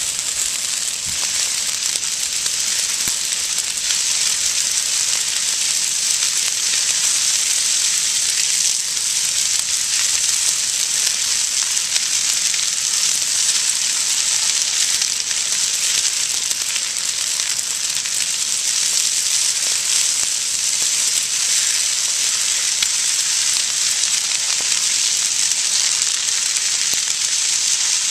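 Dry grass and brush burning in a prescribed fire: a steady, dense crackle and hiss.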